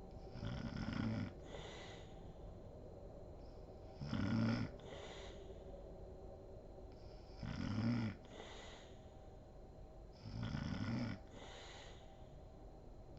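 A woman snoring in her sleep, rhythmically: four low-pitched snores about three and a half seconds apart, each followed by a short, softer breathy exhale.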